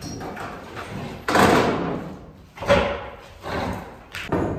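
Old wooden wall slats being pried and torn off with a flat bar and claw hammer: a string of sharp bangs and knocks, four of them loud and roughly a second apart, the loudest about a second in.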